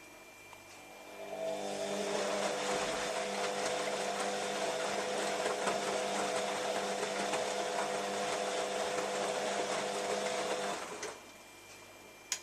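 Beko WM5101W washing machine's motor turning the drum during its wash cycle: a whine over a rushing, sloshing noise starts about a second in, runs steadily for about ten seconds, then stops abruptly. A short click comes just before the end.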